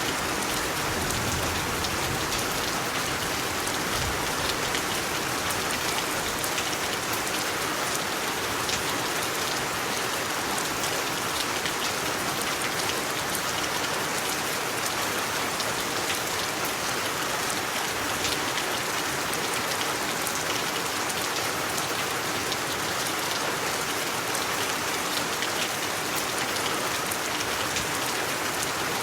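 Steady rain falling on a surface, an even hiss dotted with the small ticks of individual drops.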